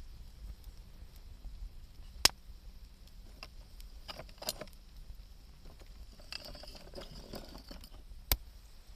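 Wood campfire crackling, with two sharp pops, one a couple of seconds in and one near the end, and bursts of crackle in between.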